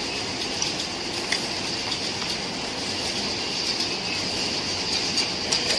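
Egg-tray packing line running: a steady hissing mechanical noise from the conveyor belts and machinery, with a few sharp clicks, one about a second in and a couple near the end.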